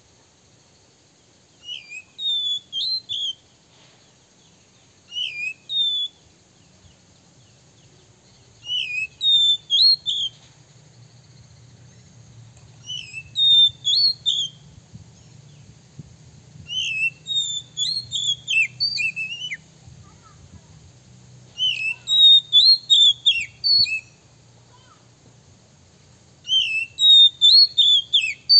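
Male oriental magpie-robin (kacer) singing: seven short phrases of quick, sweeping whistled notes, a few seconds apart, the later phrases longer and louder. This is the song that kacer keepers play as a lure (pikat) to provoke rival magpie-robins.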